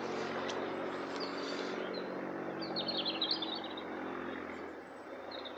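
Small birds chirping, with a quick twittering run about halfway through, over a steady low engine hum that fades out near the end.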